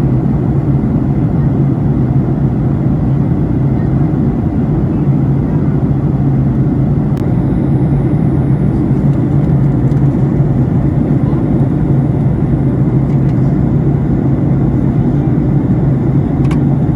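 Steady low rumble of a jet airliner's cabin in flight, with a constant hum under it. There are a couple of faint clicks, one about seven seconds in and one near the end.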